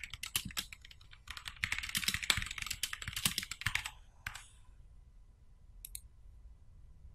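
Typing on a computer keyboard, a fast run of keystrokes lasting about four seconds. After a short gap, two quick clicks come about six seconds in.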